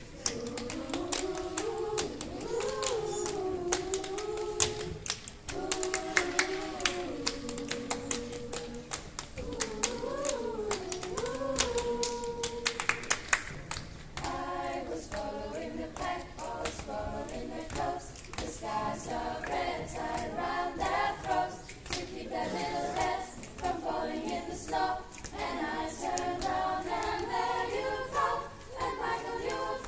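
A girls' choir singing a cappella while doing body percussion, clapping and slapping hands, chest and thighs in rhythm. The claps are dense through the first half; from about halfway the singing breaks into short rhythmic syllables with fewer strikes.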